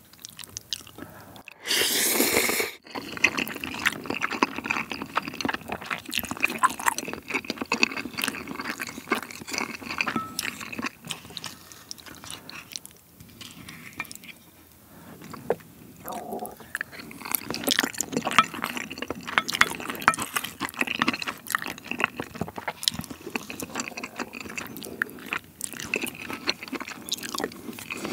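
Close-miked eating of saucy instant black-bean noodles (Jjapagetti): one loud slurp lasting about a second near the start, then steady wet, sticky chewing with many small mouth clicks.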